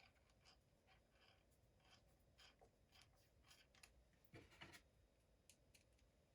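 Faint, scattered clicks and scratches of a T10 Torx driver starting the small screws of a Magpul enhanced mag release, with a slightly louder pair of clicks about four and a half seconds in.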